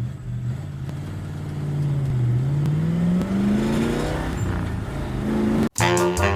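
A low, steady motor-like drone that rises in pitch a little past halfway, then cuts off suddenly into upbeat Latin-style music near the end.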